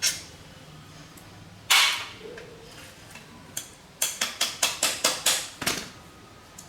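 Hammer blows on metal: a single strike, another about two seconds in, then a quick run of about eight strikes near the end.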